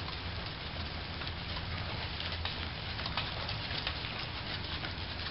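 A horse walking in soft arena dirt: irregular light crackling and scuffing of hooves in the sand over a steady low hum.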